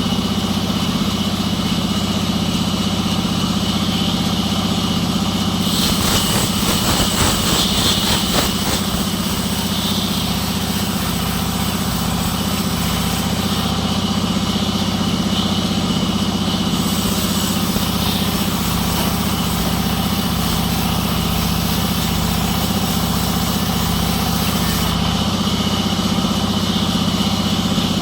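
Sawmill engine running steadily at an even speed. From about six to nine seconds in, a rapid rattling clatter joins it.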